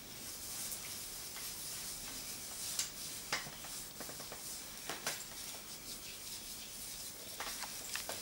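Gloved hands rubbing and kneading cream into a bare foot in a foot massage: a soft, steady rubbing hiss with a few short clicks of glove on skin.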